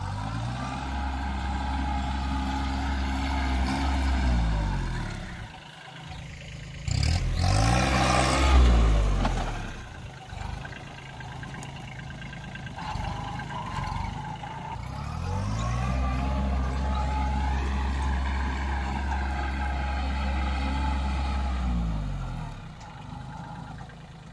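Kubota A211N compact tractor's three-cylinder diesel engine revving up, running hard for a few seconds and dropping back, three times over, as the tractor is driven. A loud rushing noise comes about seven to nine seconds in.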